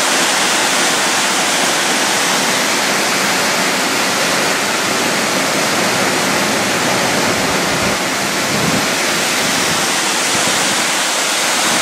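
Fast-flowing water in a hydro canal, a steady rushing noise.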